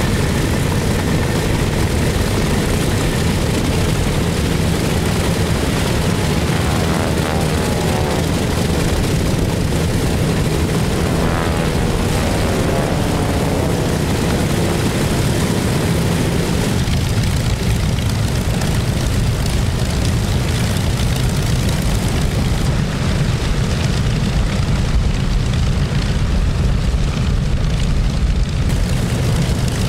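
The twin Pratt & Whitney R-2800 radial engines of a Grumman F7F Tigercat running on the ground with propellers turning: a loud, steady piston-engine rumble. The upper part of the sound thins a little past the halfway point.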